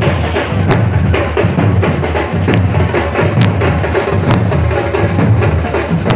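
Batucada drum ensemble playing a steady, driving samba rhythm: deep bass drums pulse underneath, with a few sharp, cutting hits standing out above the groove.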